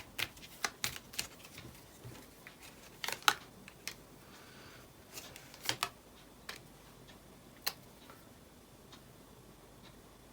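Fortune-telling cards being handled and laid out on a table: a string of sharp clicks and light slaps, most of them in the first few seconds, thinning to a few faint ticks after about eight seconds.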